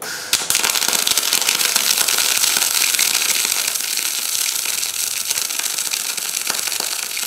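MIG welding arc from a PTK Rilon MIG 200 GDM semi-automatic inverter welder burning 0.8 mm wire at its maximum setting, about 150 amps: a steady, dense crackling that starts abruptly and holds on without a break.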